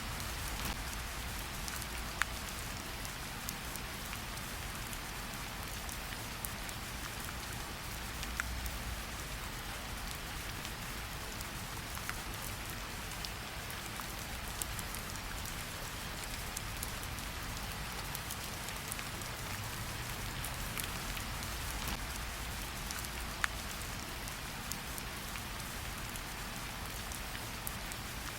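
Steady rain falling, with a constant hiss and scattered sharp drips and taps of individual drops.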